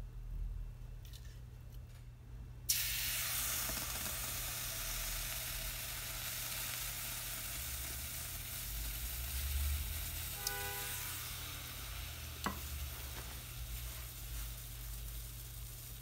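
Water poured onto a copper plate made hot by eddy currents from spinning magnets, sizzling and hissing as it boils off. The sizzle starts suddenly about three seconds in and slowly fades.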